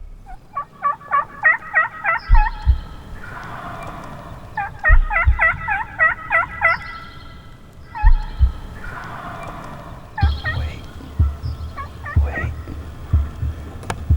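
Wild turkey gobbling several times, each gobble a quick rattling run of notes. Dull low thumps are heard between and under them.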